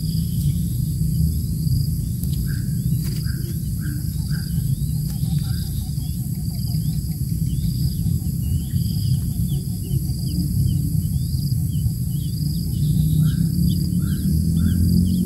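Outdoor ambience in undergrowth: a steady low rumble under regular, rapid high chirping. Short runs of three or four bird peeps come about two and a half seconds in and again near the end.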